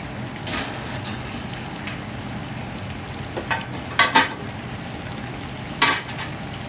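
Egg-coated chicken pieces deep-frying in a commercial fryer: a steady bubbling sizzle over the low drone of the kitchen exhaust hood. Sharp metal clanks of tongs and a skimmer against the steel pans come about half a second in, twice around four seconds, and once near six seconds.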